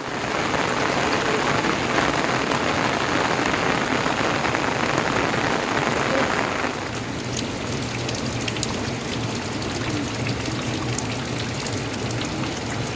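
Heavy rain falling steadily, a dense hiss. A little under seven seconds in it eases slightly, and separate drops ticking on a surface stand out.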